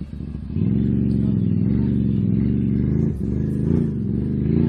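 ATV engine revving hard under load. It surges up about half a second in, holds, dips briefly about three seconds in, then revs up again.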